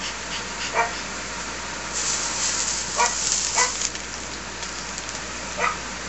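A dog whimpering for food in four short, high yips, spread out across the few seconds. A brief rustle comes in the middle.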